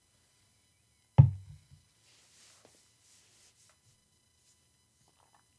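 A stemmed whiskey tasting glass set down on a wooden table, one heavy, bass-heavy thump about a second in that dies away quickly, with a light tap just after.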